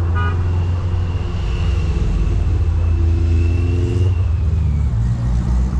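Low, steady vehicle engine rumble, with a thin high whine above it that fades out near the end.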